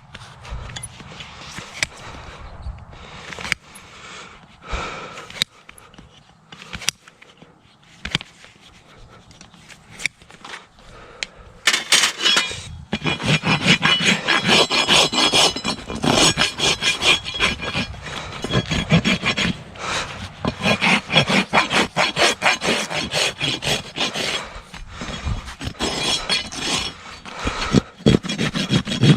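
A farrier's rasp filing a horse's hoof in fast back-and-forth strokes. It is loud and continuous from about twelve seconds in; before that there are only quieter, scattered scrapes and clicks.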